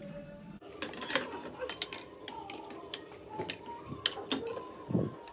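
A metal spoon clinking against a ceramic plate and curry bowl while eating, with many short, irregular clicks.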